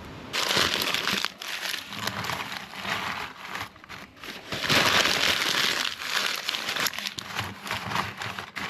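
Irregular crinkling and rustling noise that starts abruptly just after the start.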